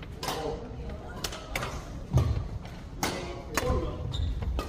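Badminton rally in a hall: several sharp cracks of rackets striking the shuttlecock, about one a second, with a heavy thud of a player's feet landing on the court about two seconds in. Brief voices come between the hits.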